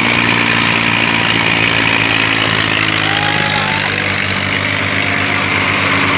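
Diesel tractor engines running hard under load in a tug-of-war, with a steady, loud engine note that dips slightly about three seconds in.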